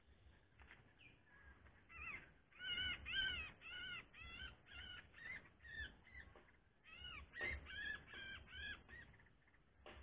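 A caged bulbul giving harsh, repeated chattering calls, about two a second, in two bouts with a short break in the middle.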